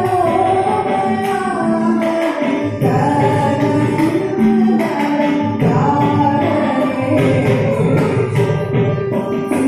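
A young woman sings a Carnatic devotional song in gliding, ornamented phrases. A mridangam plays steady strokes beneath her, and a violin follows the melody.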